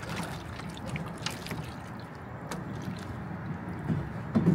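Water in a LOCO 90-quart seafood boiler sloshing and gurgling as a long wooden paddle stirs the shrimp and crab, with a few soft knocks, over a steady low rumble.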